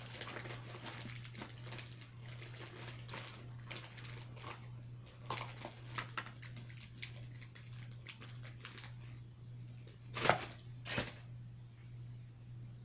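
Light rustling and small clicks of things being handled and packed, over a steady low hum. About ten seconds in come two short, loud nose blows into a tissue, the second right after the first.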